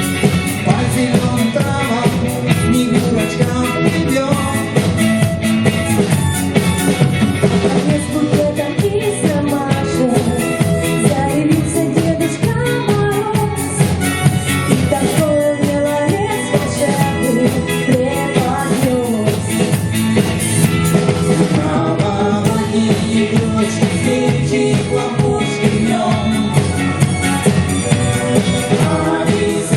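Pop-rock song by a vocal-instrumental band: singing over a steady drum beat with guitars and keyboards.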